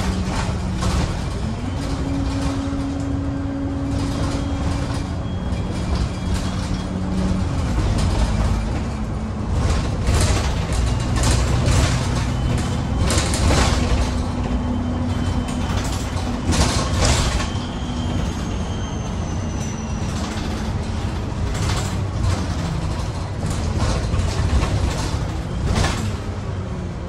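Alexander Dennis Super Pointer Dart single-deck bus driving, heard from inside at the front. Its diesel engine runs under steady road noise, and its low note shifts in pitch several times, with frequent short clicks and rattles from the bus body.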